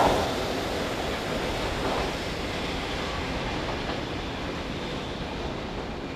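Freight train rolling past on the rails, its rear EF67 electric banker locomotive pushing at the tail, heard as a steady rushing noise that slowly fades as it moves away.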